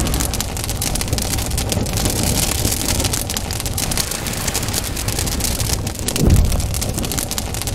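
Sound effects of an animated intro: a dense crackling, rushing noise throughout, with a deep boom about six seconds in.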